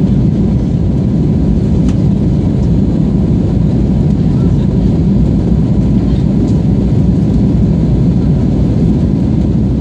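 Steady cabin noise of an Airbus A320-family airliner in flight: an even, deep rumble of engines and airflow with no breaks.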